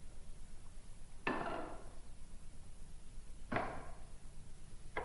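Three short knocks, about two seconds apart, over a low steady hum.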